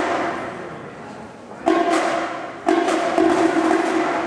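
Marching band playing: loud held chords that start sharply on a percussion hit, twice, about two-thirds of the way in, each dying away after.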